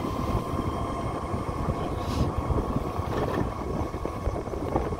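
Vehicle travelling along a road, heard from on board: a steady low rumble with irregular wind buffeting on the microphone.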